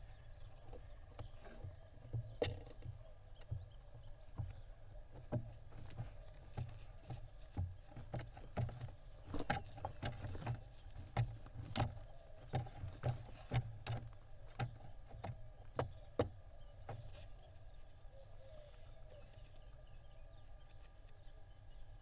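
Irregular knocks and taps of barn owl chicks shifting about and treading on the wooden floor of their nest box, coming thick and fast from about two seconds in and thinning out after about seventeen seconds, over a steady low hum.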